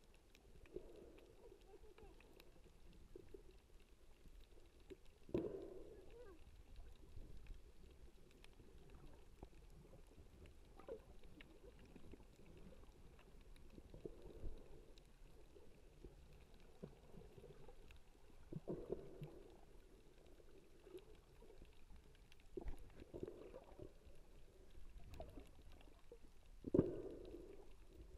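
Muffled underwater sound of a snorkeler swimming, heard through a GoPro's waterproof housing: soft dull whooshes every four seconds or so, with sharper knocks about five seconds in and near the end.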